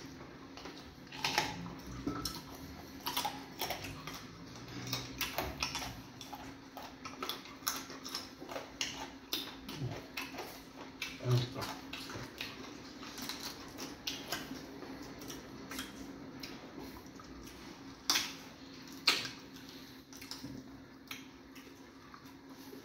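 Close-up eating sounds of two people eating fufu and egusi soup with their hands: irregular wet chewing and mouth clicks and fingers working the food on the plates, with a few louder clicks, over a steady low hum.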